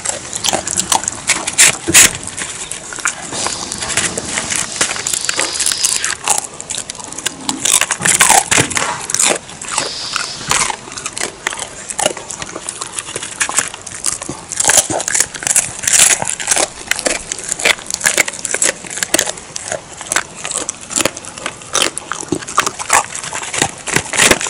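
A dog crunching and chewing fried chicken bones: a dense, irregular run of sharp, crisp cracks as the bones break between its teeth.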